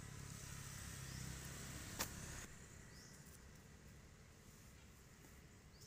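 Faint outdoor ambience: a low rumble that drops away about two and a half seconds in, one sharp click about two seconds in, and short rising chirps repeating every couple of seconds.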